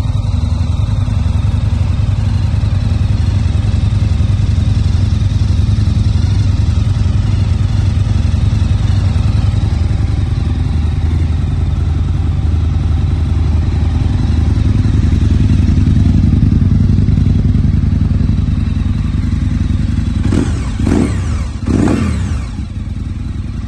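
Aprilia Tuono 1000's 998cc V-twin idling steadily through Akrapovic exhausts, given two short blips of the throttle near the end.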